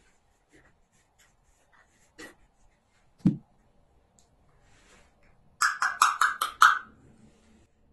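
A container set down on the table with a short thump, then about six quick sharp knocks of a small plastic measuring cup against a porcelain mortar, tapping the weighed powder out of the cup.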